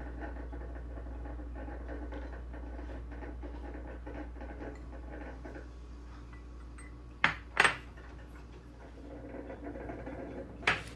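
Shredded cheddar cheese being sprinkled by hand from a small glass bowl onto chips on a plate, a faint scattered pattering over a steady low hum. Two sharp clinks come about seven seconds in, and another near the end.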